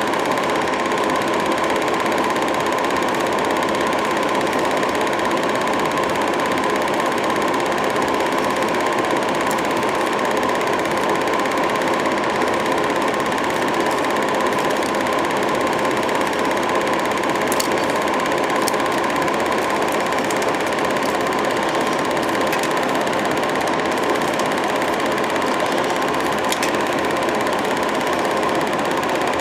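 Film projector running, a steady rapid mechanical clatter from its motor and film-advance mechanism that holds unchanged throughout.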